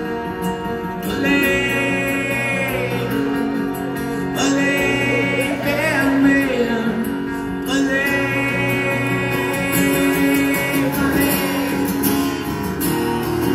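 Live music from an acoustic band: strummed acoustic guitars under a long-held melody line in three drawn-out phrases, an instrumental passage between sung lines.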